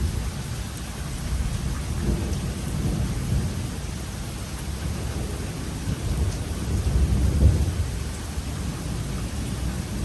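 Thunder rumbling low over steady rain, swelling twice and loudest about three-quarters of the way through.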